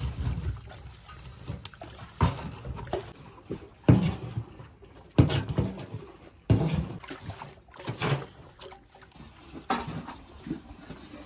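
Liquid sloshing inside a clay butter churn as it is rocked back and forth, with one slosh about every second and a half.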